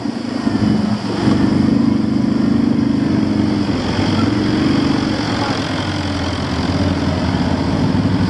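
ATV engine running as the quad rolls slowly along a farm track, its pitch rising and falling with the throttle.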